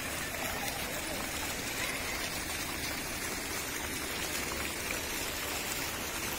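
Ornamental garden fountain jets splashing into a shallow pool, a steady, even rush of falling water.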